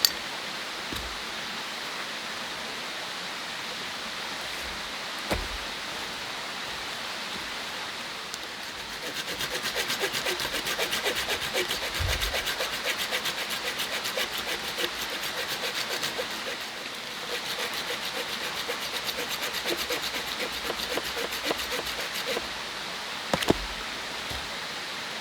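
Hand saw cutting through a branch of firewood in steady, fast back-and-forth strokes, starting about a third of the way in and pausing briefly before going on, with a couple of single knocks of wood. A steady rush of a stream sits underneath.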